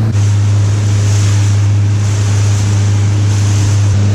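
Motorboat underway: the engine runs with a steady low drone under the rush of water and wind.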